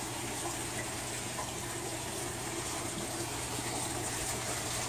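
Water running steadily through an aquaponics system, an even rushing of flowing water with a low steady hum underneath.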